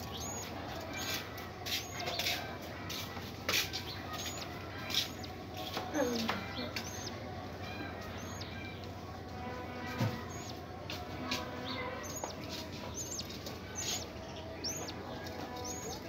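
Budgerigars chirping: short high chirps repeating about once a second, with scratches and rustles of birds moving in the nest.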